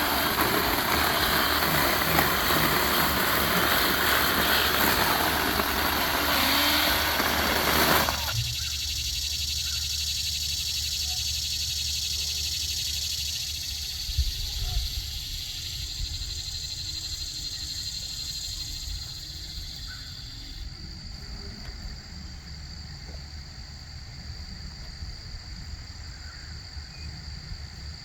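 Loud steady machine noise cuts off abruptly about eight seconds in, leaving a low rumble that slowly fades.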